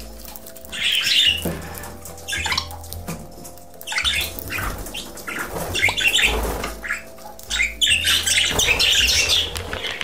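Pet budgerigars squawking and chattering in repeated bursts, busiest in the last two seconds.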